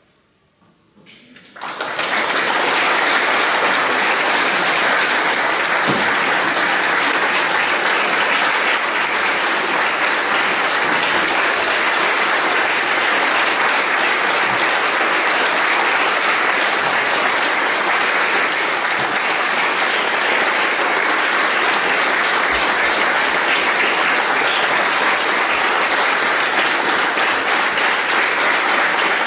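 A brief hush, then audience applause breaks out about two seconds in and goes on steadily.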